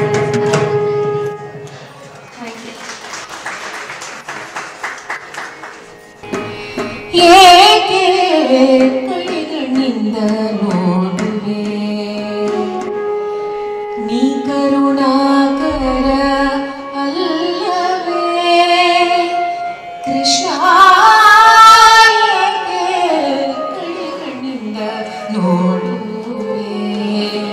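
A woman singing a devotional dasa kriti bhajan in Carnatic style, with ornamented sliding notes, accompanied by tabla. A quieter instrumental stretch gives way to the voice coming in strongly about seven seconds in.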